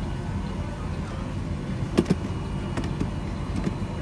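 Clicks and knocks from an airliner seat's tray-table latch being handled, with a sharp double click about halfway through and a few lighter clicks after it. Underneath is the steady low hum of the aircraft cabin.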